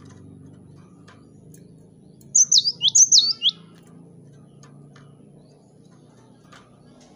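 Cinereous tit calling: a loud burst of about six sharp, high notes in two quick groups, each note a fast downward sweep, a little over two seconds in. Faint ticks here and there as the bird hops about the cage.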